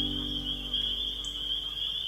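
Chorus of spring peepers, a steady high-pitched calling without a break. Fading background music trails away in the first moments.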